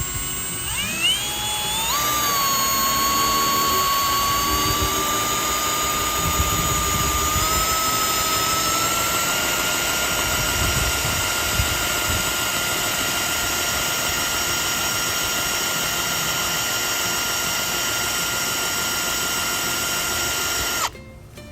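Electric drill turning the oil pump through a priming tool to prime the oil system of a freshly rebuilt MerCruiser 350 V8 before its first start. The whine rises as the drill spins up over the first two seconds, then holds steady with its pitch creeping slightly higher, and cuts off abruptly near the end.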